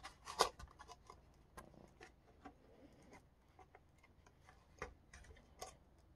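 Faint scattered clicks and small taps from hands working a plastic ABS hinge into a slot in a foam RC-plane part, with a sharper click about half a second in and a couple more near the end.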